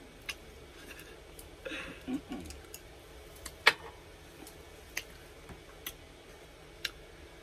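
Close-miked eating of a taco: scattered sharp mouth clicks and smacks while chewing, with a brief soft rustle about two seconds in.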